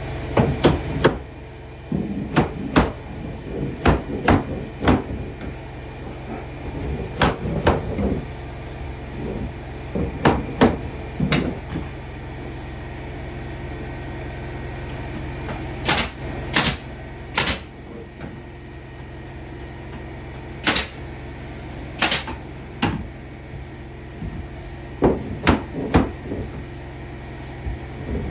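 Irregular knocks and clunks of wood being handled and worked, with a few sharper taps about two-thirds of the way in, over a steady low hum.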